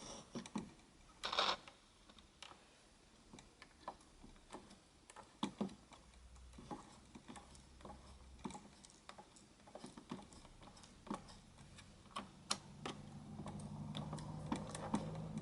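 Faint, irregular clicks and crackle from a Grundig Solo Boy 500 portable radio tuned between stations, with a low hum building up about thirteen seconds in.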